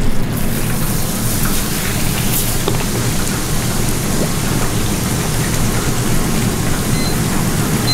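Hot oil in a commercial deep fryer sizzling and bubbling steadily around a large flour-coated chicken cutlet that has just gone in.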